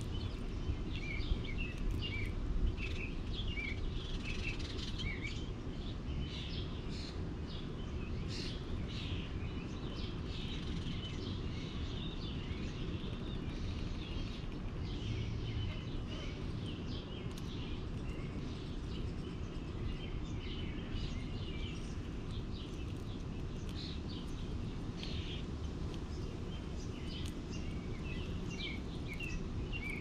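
Many small birds chirping and calling, short high chirps overlapping all through, over a steady low background rumble.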